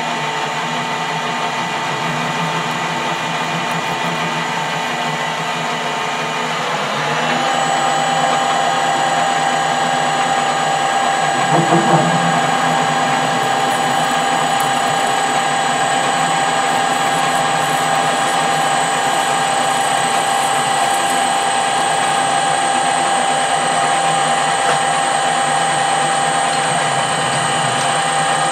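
Metal lathe running with a steady motor and gear whine. About seven seconds in, the whine drops slightly in pitch and gets louder, and there is a brief knock near the middle.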